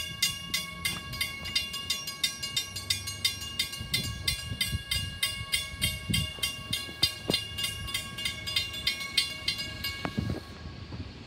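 Railroad grade-crossing warning bell ringing fast and evenly, about four strikes a second, with a low rumble underneath. The bell stops about ten seconds in.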